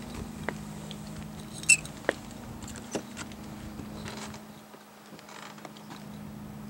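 Footsteps and light clicks on pavement, a few scattered ticks about a second apart, with one sharp, high squeak-like click about two seconds in, over a steady low hum.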